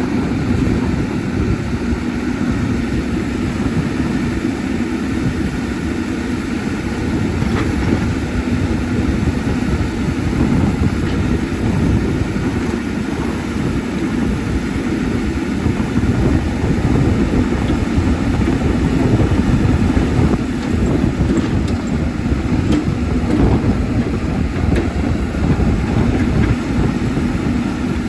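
Caterpillar 320D excavator's six-cylinder diesel engine running steadily under working load, with a steady low hum and a few faint knocks.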